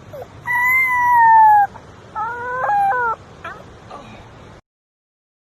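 Two long, drawn-out animal calls: the first is held and then sinks slowly in pitch, the second wavers and breaks partway through.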